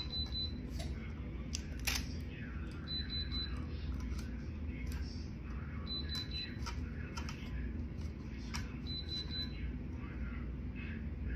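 Tumbler heat press beeping: a short, rapid run of high beeps about every three seconds, the signal that it is up to temperature. Under it a steady low hum, with clicks and rustles of the sublimation paper being handled on the tumbler.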